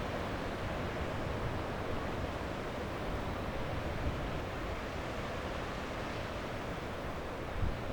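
Sea waves washing onto a beach: a steady wash of surf, with a short low thump near the end.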